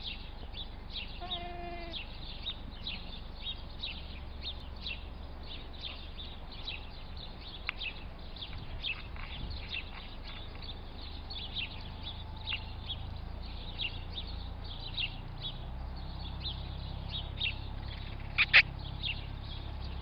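Small birds chirping over and over, two or three quick high chirps a second. About a second and a half in, a young lamb gives one short wavering bleat. A brief sharp sound stands out near the end.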